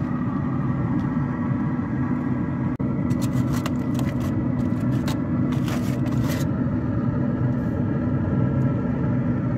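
Aluminium foil crinkling in two spells as a foil packet of vegetables is pulled open. Underneath is a loud, steady mechanical hum.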